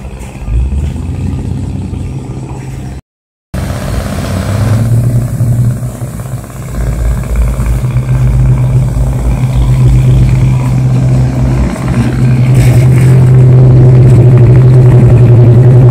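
Harbour cleaning workboat's diesel engine running as the boat manoeuvres close alongside the quay: a steady low hum that grows steadily louder, with its propeller churning the water. The sound cuts out briefly about three seconds in.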